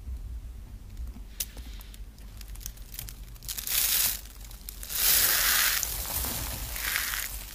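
Hands squeezing and crushing a block of dry, pressed grated soap, giving crisp crackling and crunching. Light crackles come first, then loud crunches just before four seconds in, again about five seconds in, and once more near the end.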